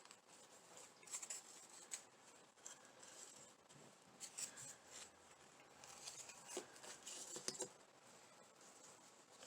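Faint rustling and light clicks of hands threading and tying rope through craft hearts, coming in short scattered spells.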